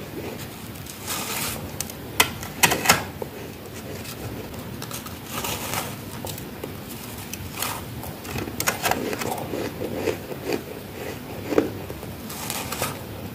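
Biting and chewing freezer-frost-covered ice: sharp, crackly crunches in irregular clusters, the loudest a few seconds in.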